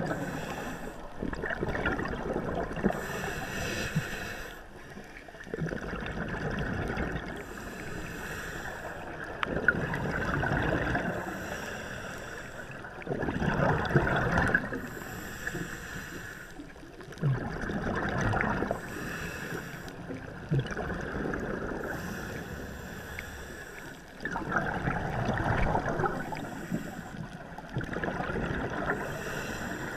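Muffled rushing and gurgling of water heard underwater through a GoPro's waterproof housing, swelling and fading every few seconds, with short hissy surges every couple of seconds.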